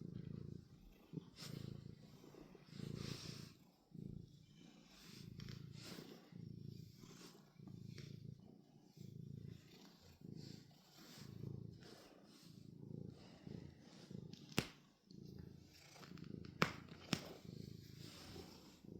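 Domestic cat purring close by, the purr swelling and fading with each breath about every second and a half. A few sharp clicks come near the end.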